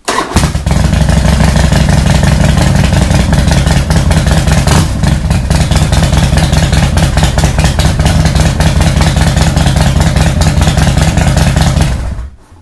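Harley-Davidson V-twin engine of a 2005 CVO Fat Boy firing up at once and running loud and steady, then shut off about 12 seconds in. It is a test start after replacing the fuel pump, fuel filter and fuel pressure regulator, and it runs without stumbling.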